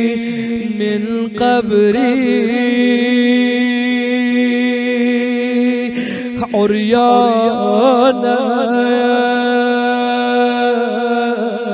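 A man's voice chanting an Arabic supplication in long, drawn-out, wavering melodic phrases, over a steady low held note. The word 'ʿuryānan' ('naked') is sung about eight seconds in.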